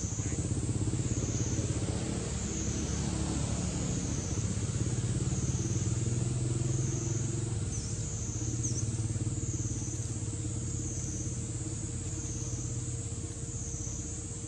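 Steady low hum of an idling engine, with a high-pitched drone above it that swells and fades about once a second.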